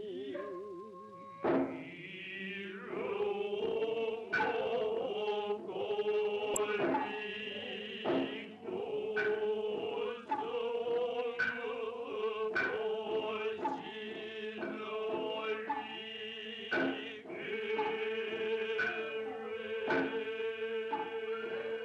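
Noh chanting: voices in unison chant in slow, wavering lines, punctuated by sharp drum strokes that fall every second or so.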